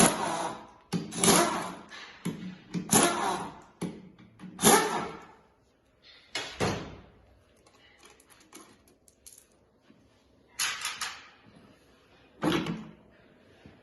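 Metal parts of an automatic transmission clanking and knocking as it is taken apart by hand: a run of sharp, irregular clanks, each with a brief ring. The clanks fall quiet for a few seconds in the middle and resume near the end.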